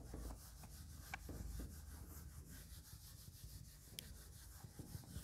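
Faint rubbing of a duster wiping marker writing off a whiteboard, with two light ticks, one about a second in and one near the end.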